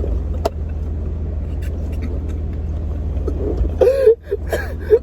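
Steady low hum of a car's idling engine heard from inside the cabin, with a sharp click about half a second in. Near the end, a few short whimpering groans from a person in pain from the cold food.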